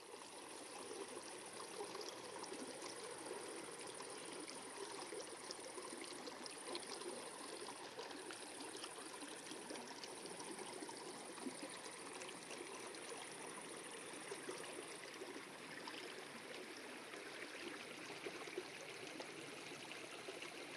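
A small, shallow stream running and trickling over stones. Above it is a thin, steady high-pitched buzz that breaks off briefly a few times and stops about three-quarters of the way through.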